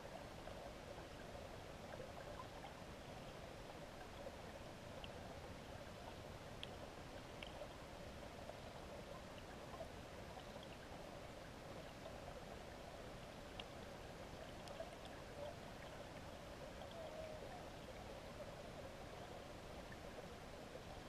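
Steady, muffled hiss of river water flowing, heard underwater through a GoPro Hero 3+'s waterproof housing, with a few faint scattered ticks.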